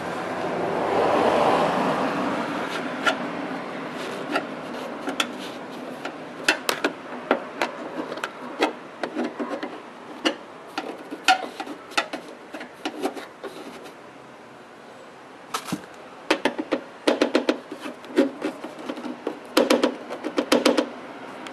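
Hands stuffing pieces of sponge foam into the gaps of a car's rear hatch plastic trim: a scuffing rub at first, then a long run of small clicks and taps from the plastic panel and fingers, thickest near the end.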